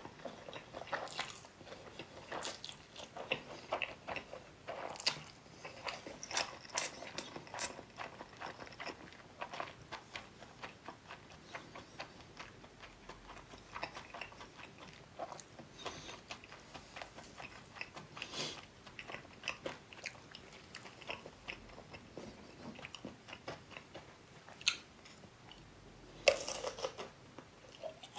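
Close-miked chewing of food, a steady run of small wet mouth clicks and crunchy bites, with a few louder bites along the way and a bigger one near the end.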